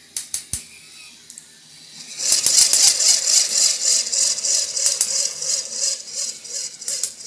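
Plastic K'NEX model V8 engine, driven by a drill motor, starting up: a few clicks, then from about two seconds in a rapid, rhythmic plastic clatter as its pistons and linkages begin moving.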